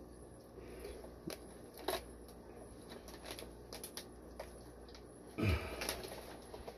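Handling of the fish shipment's packing: scattered light rustles and clicks, with one louder thud and rustle about five and a half seconds in.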